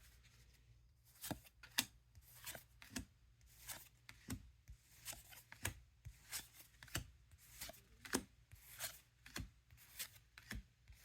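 Trading cards being handled and flipped through one at a time, a soft click or flick of card against card every half second to a second.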